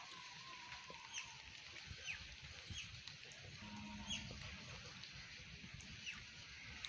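Birds calling: about five short, high, falling chirps spaced irregularly, over a faint steady outdoor hiss.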